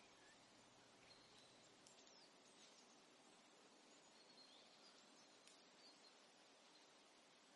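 Near silence: a faint steady hiss with a few faint, brief high chirps.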